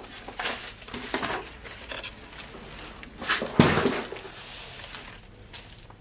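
Bubble wrap and packing paper rustling as bubble-wrapped handbags are lifted out of a shipping box, with a thud about three and a half seconds in as one is set down on a table.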